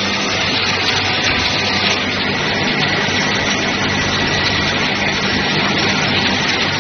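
Steady loud din of running production-line machinery, with motors, conveyor and mechanical arm at work and a low hum underneath.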